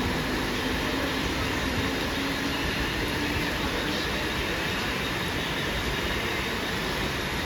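Mumbai suburban local electric train (EMU) running at the station, a steady rumble and hiss with no breaks, heard through heavy rain.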